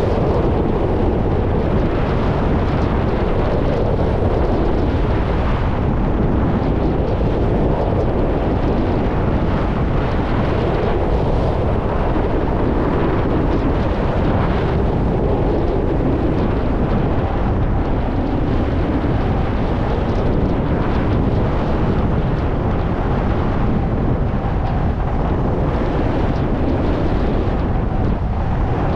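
Steady wind noise rushing over the microphone of a skier running downhill at speed, with skis sliding over spring snow underneath.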